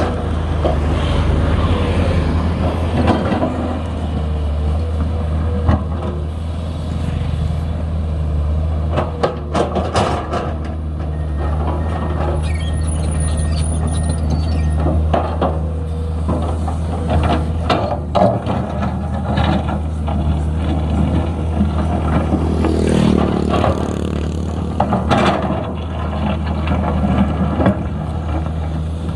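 Heavy diesel engine of a Komatsu PC210LC excavator running steadily under work, with scattered metallic clanks and knocks from the machine.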